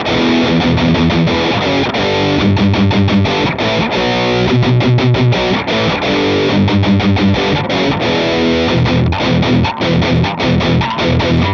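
Heavily distorted electric guitar played through a Fulltone OCD overdrive pedal boosted by an analog Klon-clone pedal, in a metal-style setting: a rhythmic riff of repeated chugging notes and chords that stops abruptly at the end.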